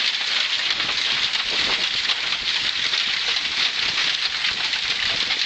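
Heavy storm rain pelting down in a dense, steady patter of countless drops hitting a surface.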